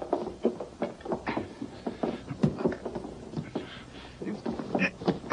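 A scuffle over a saddle: a quick, irregular string of knocks, thuds and rustles as it is grabbed and handled.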